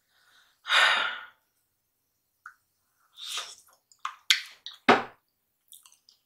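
Close-miked eating sounds: a breathy exhale about a second in, then scattered soft mouth clicks and smacks while a forkful of mashed potatoes is eaten.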